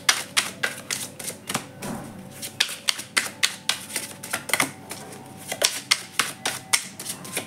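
A deck of tarot cards being shuffled by hand, the cards clacking together in quick, irregular clicks, two to four a second.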